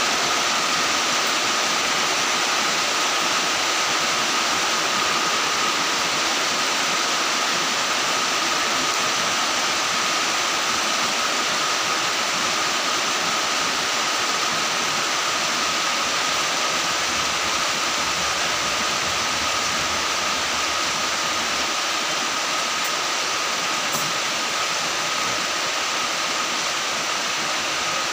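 Steady, even rushing noise like running water or a fan, with a faint steady high tone running through it; it does not change in level.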